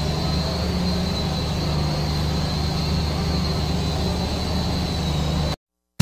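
Steady mechanical hum with a faint high whine over a soft hiss, unchanging, cutting off abruptly near the end.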